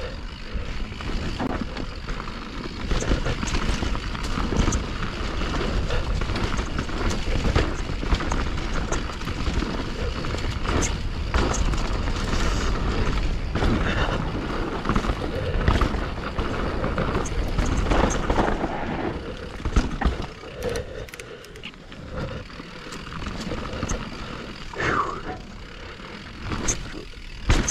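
Wind rushing over the microphone during a fast run down a trail, with irregular knocks and rattles from the ride; it eases and turns patchier about two-thirds of the way through.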